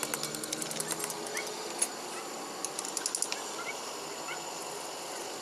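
Scattered sharp metallic clicks and taps from hand-tool work, one louder click about two seconds in and a quick run of clicks near the middle, with a few short rising chirps in the background.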